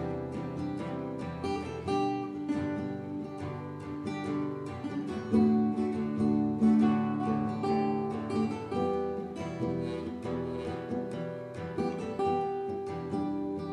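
Instrumental background music led by a plucked and strummed acoustic guitar.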